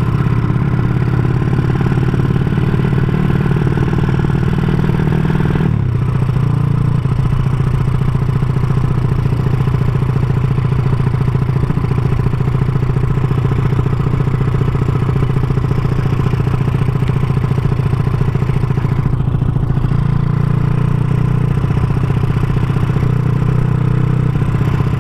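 Honda Supra underbone motorcycle with its four-stroke single bored out to 200cc and a CJDW aftermarket exhaust, running steadily under way. The exhaust note eases off abruptly about six seconds in and picks up again about twenty seconds in.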